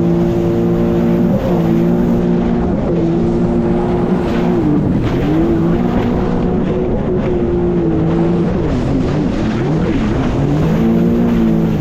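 Jet ski engine running hard, its pitch dipping and climbing back several times as the throttle is eased and opened again, over wind and water noise.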